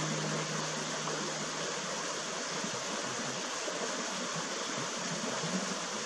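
Shallow creek water running over rocks, a steady rushing babble. Held low notes from background music fade out in the first second or so.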